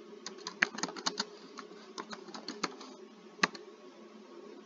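Computer keyboard typing: a quick run of keystrokes for about three seconds, then a single sharper click a moment later, over a faint steady low hum.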